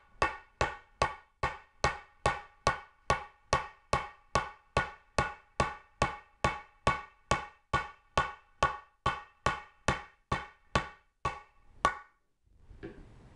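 Hammer tapping a metal pipe nipple into a tight hole in a 2x4: a long run of steady, evenly spaced strikes, about two and a half a second, each with a short metallic ring, stopping about a second before the end.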